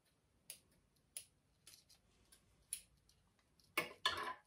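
Faint, scattered sharp clicks and crackles as the dried roots and leaves of an orchid are handled, then two louder metallic clacks close together near the end as scissors are pulled off a magnetic wall rack.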